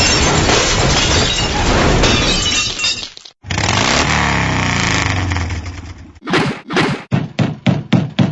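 Stock sound effects played back to back: a long crashing, breaking noise, a second crash after a brief gap, then a quick run of about ten short sharp hits.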